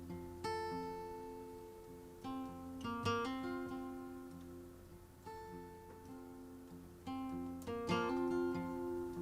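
Plucked acoustic string instrument, guitar-like, playing a slow folk introduction. Single notes and small chords are picked a second or two apart and each is left to ring out and fade.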